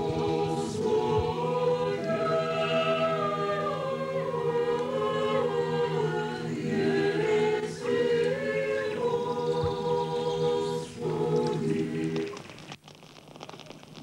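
A choir singing unaccompanied Orthodox chant, the melody moving slowly over a low note held steady underneath. The singing cuts off about a second before the end, leaving faint crackling from a bonfire.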